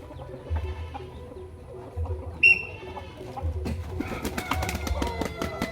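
Roosters giving short crows and calls, one loud sharp call about two and a half seconds in, then a busy stretch of short calls and clicks in the last second and a half. A low rumble comes and goes.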